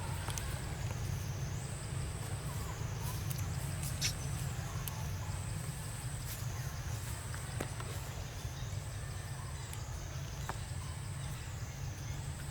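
A high-pitched insect chorus, likely cicadas, pulsing in a steady rise and fall about every two seconds over a constant low rumble, with a few faint clicks.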